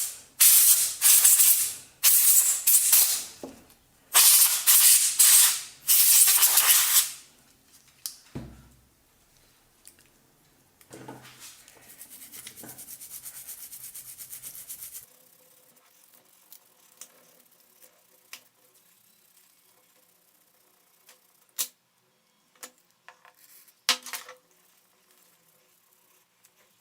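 Spray hissing in four bursts of a second or two each, as a dirty blender is being cleaned. A softer steady hiss follows, then scattered light clicks and taps of parts being handled.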